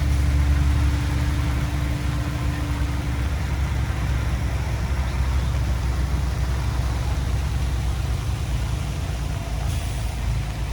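Heavy-equipment diesel engine running steadily under a low, even hum. A thin steady tone over it stops about three seconds in.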